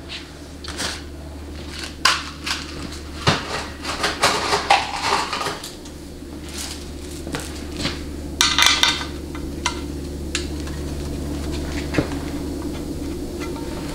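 A steel test plate being handled and fitted onto the belly of a 700R4 transmission's aluminium case: scattered metal clinks, taps and clatters, with a busy flurry about eight or nine seconds in, over a steady low hum.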